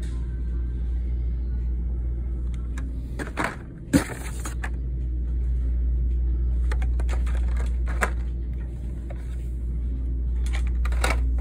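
Plastic blister cards and a cardboard case being handled, giving a few short clicks and rustles with one sharp click about four seconds in, over a steady low rumble.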